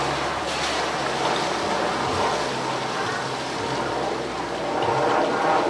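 Steady rush of splashing water in a polar bear's pool, with faint crowd chatter behind it.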